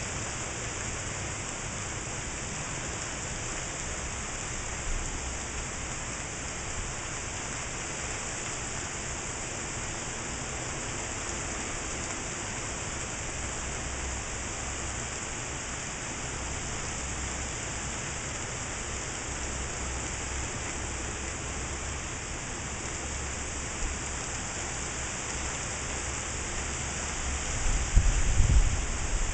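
Heavy tropical-storm rain pouring in a steady hiss, with gusty wind rumbling low on the microphone; a loud low rumble near the end is the loudest moment.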